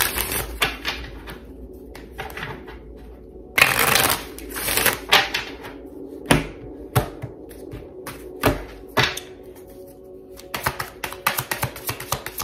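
A deck of oracle cards being shuffled by hand: bursts of card rustling and single sharp card snaps, then fast clicking of cards flicking through the hands near the end.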